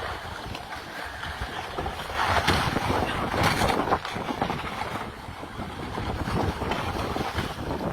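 Wind buffeting the microphone over the rush and slosh of sea water around a boat, louder for a stretch about two to four seconds in.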